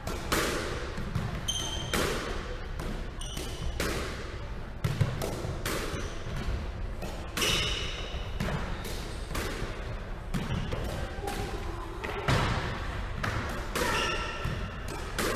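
A squash rally: the ball struck by racquets and hitting the walls and wooden floor, giving a run of sharp impacts every second or so. Rubber-soled shoes squeak briefly on the wooden court floor several times.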